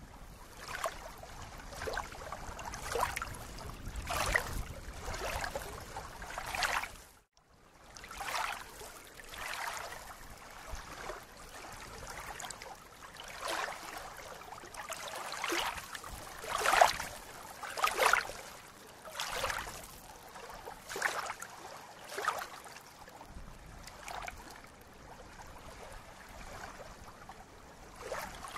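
Small ripples lapping against a lake's reedy edge, a soft splash about every second or so. A low rumble sits under the first seven seconds, and the sound drops out briefly about seven seconds in.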